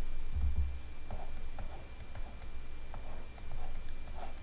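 Pen or stylus scratching in short strokes, about two a second, while a pentagon is drawn; a low thump about half a second in, over a faint steady electrical hum.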